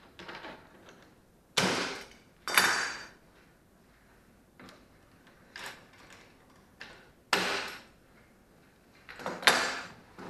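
Metal clamps being worked loose and taken off a glued plywood panel, with four sharp clanking knocks, two of them ringing briefly, and lighter clicks in between.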